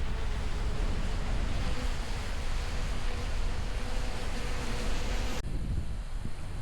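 Wind buffeting the microphone over the steady wash of surf, with a faint steady insect buzz that stops abruptly about five and a half seconds in.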